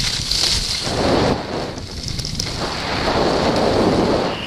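Wind buffeting the microphone of a camera moving downhill on skis, rumbling in two swells, over a steady hiss of skis sliding on packed snow.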